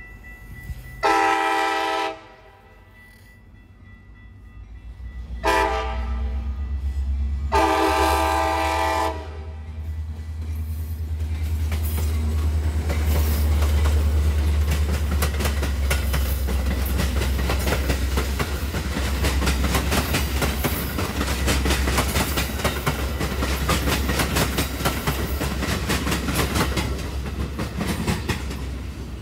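Metra MP36PH-3S diesel locomotive sounding its horn in three blasts (long, short, long), the tail of a grade-crossing signal. Its engine then rumbles low as the train passes close by, and the bilevel coaches' wheels clatter rapidly over the rail joints.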